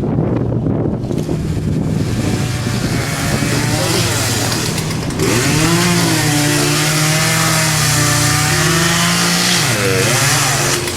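Chainsaw engine running, revved up about five seconds in and held at high speed, then throttled down and back up near the end.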